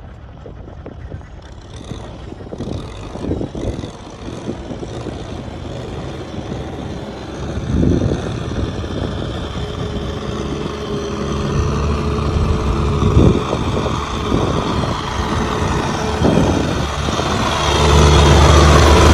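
Kubota M6040 SU tractor's diesel engine running, growing steadily louder and loudest near the end, with a few dull thumps along the way.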